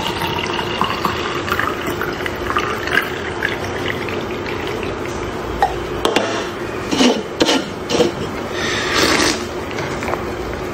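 Carbonated energy drink pouring from two aluminium cans into a tall glass, a steady splashing fizz as the glass fills. About six seconds in come several sharp knocks as the cans are set down on the table, then a brief hissing rush near the end.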